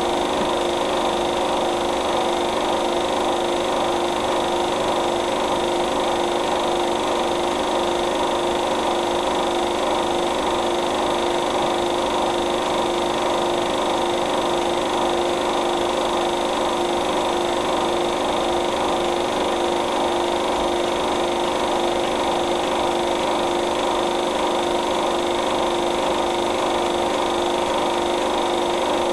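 Steady mechanical hum with several fixed tones over an even hiss, unchanging in level and pitch.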